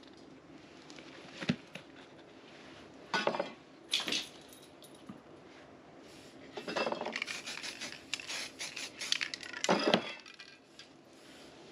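Handling noises of hard objects on a work table. There is a sharp knock about a second and a half in and two short bursts of clatter a few seconds later, then a denser stretch of clinking and rattling near the end, ending in one louder hit.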